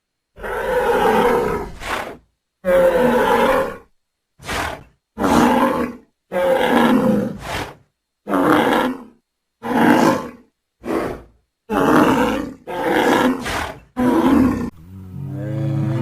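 A big cat roaring again and again, about a dozen separate roars, some long and some short and clipped, with short pauses between them. Near the end a different, steady low pitched call begins.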